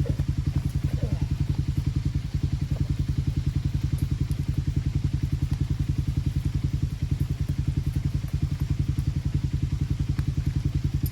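The stuck Ranger's engine idling, with a steady, even, fast low pulse and a few faint clicks.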